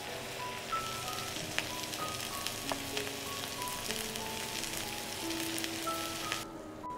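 Chicken breasts sizzling in a frying pan, a steady hiss with scattered crackling pops, over a simple background melody. The sizzle cuts off near the end, leaving only the melody.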